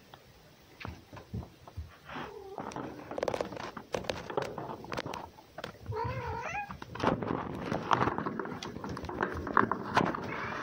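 A ginger cat and a red fox play-fighting: wavering yowl-like calls at about two and six seconds in, among quick scuffles, scratches and paw taps that grow busier in the second half.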